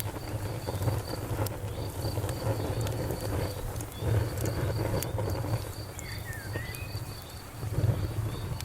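Campfire wood crackling, with scattered sharp pops over a low steady rumble. A cricket chirps steadily and high-pitched at about three chirps a second.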